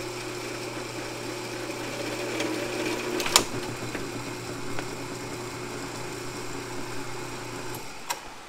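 Floor-standing drill press running with a steady motor hum, getting louder for a second or so before a sharp clack about three and a half seconds in as the quill comes back up. The motor hum stops near the end, followed by a click.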